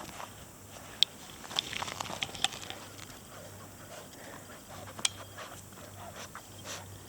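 Akita puppies moving about and playing, a scatter of small scuffling noises with sharp clicks about one second and five seconds in.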